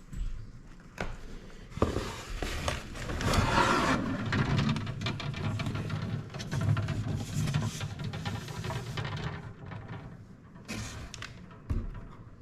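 Packaging being handled while an egg incubator is unboxed: irregular rustling, crinkling and light knocks, busiest in the middle.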